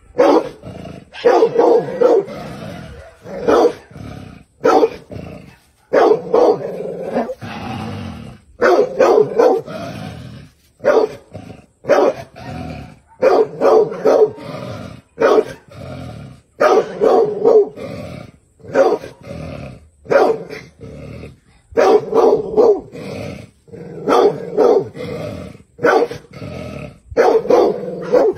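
A dog barking in clusters of sharp barks every second or two, with growling between, aggressive barking aimed at a snake it is confronting.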